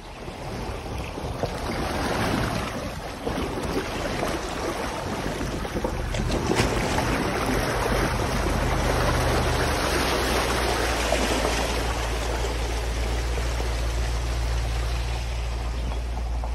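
A vehicle's tyres pushing through shallow river water, water splashing and rushing along its side, with the engine's low steady drone underneath. The splashing eases over the last few seconds as the vehicle climbs out onto the dirt track.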